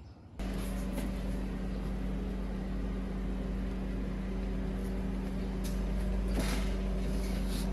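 A steady machine hum holding one pitch over a low rumble starts abruptly about half a second in and runs on, with a few brief rustles near the end.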